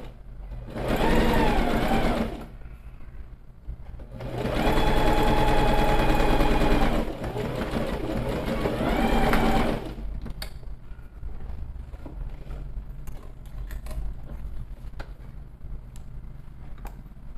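Electric sewing machine stitching a fabric seam in runs: a short burst, then a longer run from about four seconds in whose motor whine rises in pitch, holds, and winds down near ten seconds. After that only light scattered clicks are heard.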